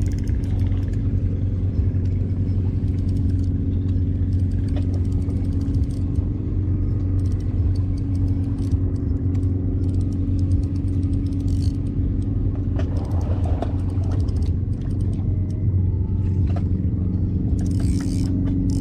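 An engine running steadily at a constant low pitch, with a few faint clicks and clatters over it.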